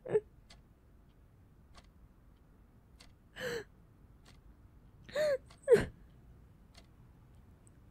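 A woman crying: short gasping sobs, one right at the start and three more from about three and a half seconds in, with quiet stretches between them.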